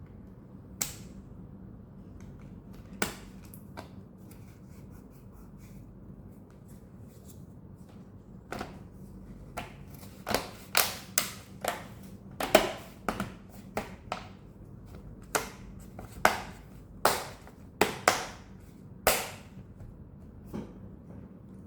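A run of sharp, irregular clicks and snaps of hard parts being handled, sparse at first and thick in the second half, over a low steady hum.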